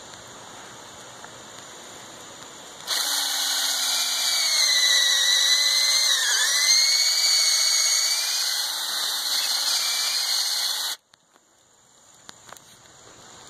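Ryobi cordless drill with a tree-step bit boring into a tree trunk. It starts about three seconds in and runs for about eight seconds. Its whine sags in pitch midway as the bit bites into the wood, recovers, then cuts off suddenly.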